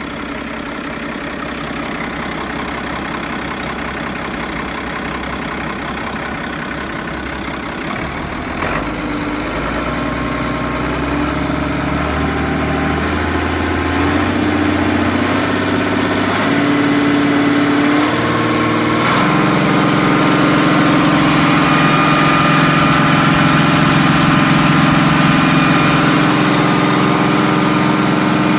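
Ford 7.8L diesel engine of a 1988 Ford F800 running, heard close up at the open engine bay. Its sound shifts about a third of the way in and again about two-thirds through, growing gradually a little louder.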